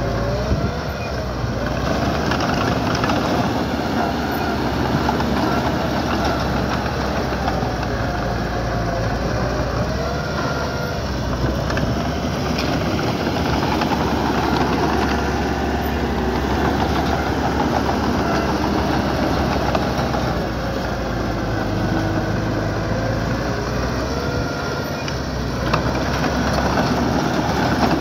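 Diesel engine of a small earthmoving machine running steadily under work, with pitched whines wavering up and down over the engine note.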